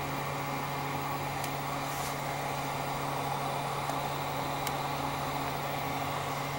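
Hot air rework tool blowing steadily: an even rush of air with a low fan hum, heating a new surface-mount chip to melt its solder onto the board. A few faint ticks sound over it.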